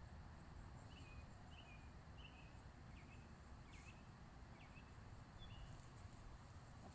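Faint series of short, high bird chirps, about one every half second to a second, over a quiet, low outdoor rumble.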